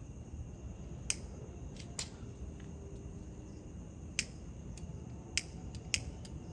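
Gas lighter's igniter clicked about six times at uneven intervals without the flame catching, which the user suspects is because the lighter has run out of gas.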